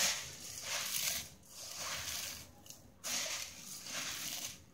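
Puffed rice being tossed and mixed by hand with chopped vegetables in a steel bowl: a rustling in repeated surges, about one a second.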